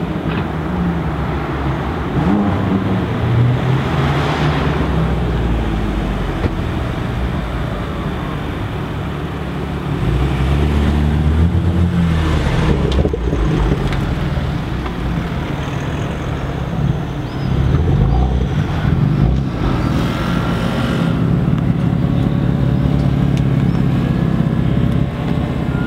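BMW M3 F80's twin-turbo straight-six running through Akrapovic straight pipes: a loud exhaust note at low speed, with several short revs that rise and fall as the car pulls away.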